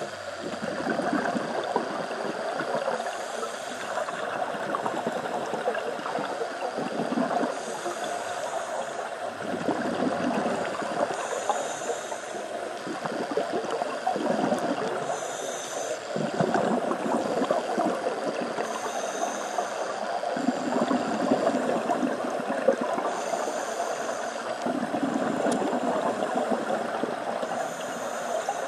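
Scuba diver breathing through a regulator, heard underwater: a short hissing inhale about every four seconds alternates with gurgling bursts of exhaled bubbles.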